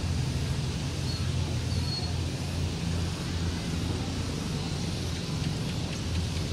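Distant formation of military turboprop transport planes flying overhead: a low, steady propeller drone.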